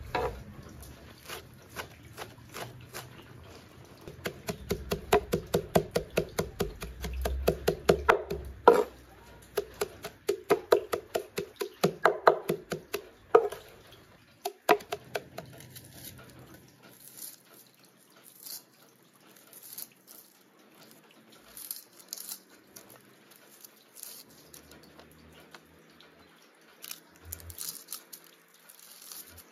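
A cleaver chopping fresh green herbs on a round wooden board, in quick runs of about four to five strokes a second with a few heavier knocks. In the second half the chopping stops, leaving soft scattered crackles of an onion's dry skin being peeled.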